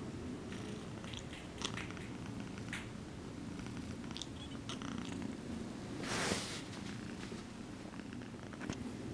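Exotic shorthair kitten purring steadily, a low pulsing rumble, with a short burst of noise a little after six seconds in.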